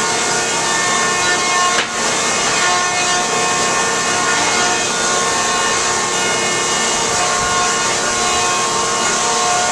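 1976 Newman M68 electric planer running steadily with boards feeding through it, a continuous wood-planing noise with several steady whining tones from the machine. The sound dips briefly about two seconds in.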